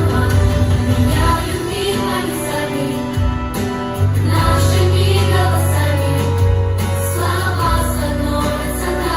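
Pop song with a heavy, steady bass line and voices singing together over the backing track.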